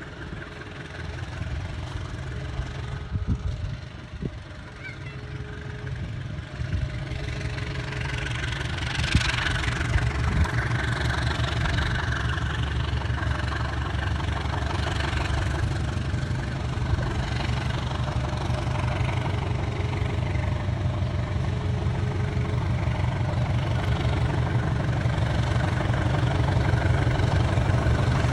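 Diesel train engine running with a low, steady rumble that grows steadily louder as the train gets under way.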